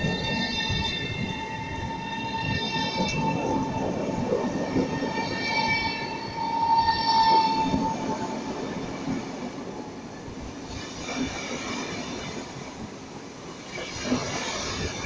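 PKP Intercity Pendolino (ED250) electric train rolling past along the platform: a steady rumble of wheels on rail with high, whining tones over it, loudest about seven seconds in, then fading.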